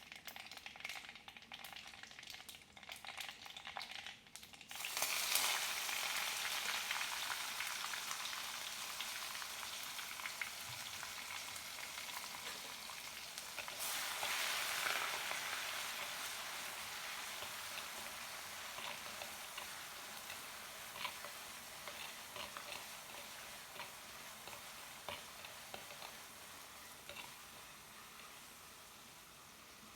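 Food frying in hot oil in a pan: scattered crackling pops for the first few seconds, then a sudden loud sizzle about five seconds in. The sizzle swells again midway and slowly dies down.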